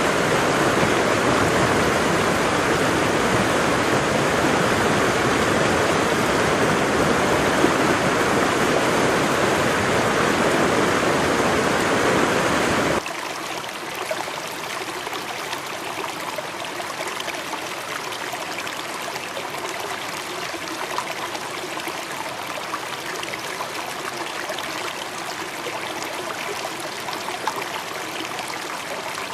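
Steady rush of falling and flowing water from a waterfall. About thirteen seconds in it cuts abruptly to a quieter, lighter flow of splashing, trickling water.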